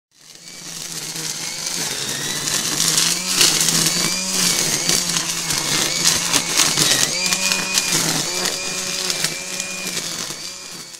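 Makita DUR187LZ 18V cordless brushless line trimmer running with its nylon line cutting through dense nettles and weeds. The motor's whine dips in pitch several times and recovers as the head meets thicker growth, over a crackle of stems being struck.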